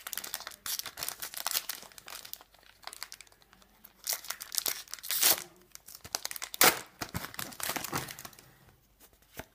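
Foil Pokémon booster pack being torn open and crinkled by hand: steady crackling with several sharp rips, the loudest about two thirds of the way through, fading near the end.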